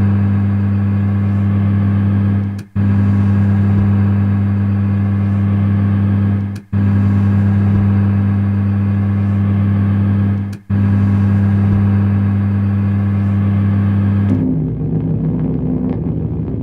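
A loud, steady, low-pitched buzzing drone, broken by a brief gap about every four seconds. Near the end it gives way to a rougher, quieter rumble.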